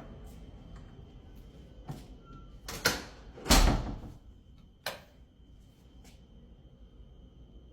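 Household handling sounds: a few light clicks and knocks, with two short, louder rushes of noise about three and three and a half seconds in, the second the loudest.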